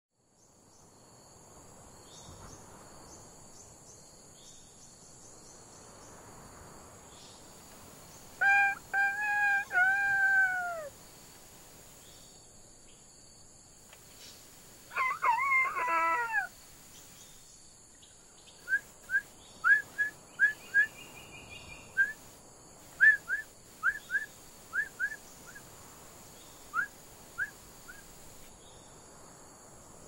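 A person's vocal imitation of a rooster crowing, a drawn-out call about 8 seconds in that ends on a falling note, then a second, shorter crow about 15 seconds in. From about 19 seconds on comes a string of about fifteen short, high chirps imitating a capybara.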